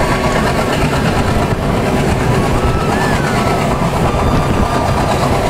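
A moving passenger train heard from an open coach doorway: a steady, loud running rumble of wheels on rails with rushing air, and a faint wavering squeal above it.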